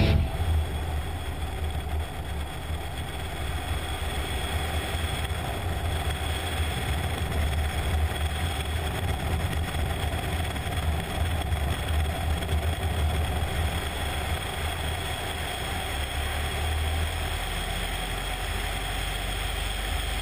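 Tiger Moth biplane's engine running steadily in flight, with wind rushing past a wing-mounted camera.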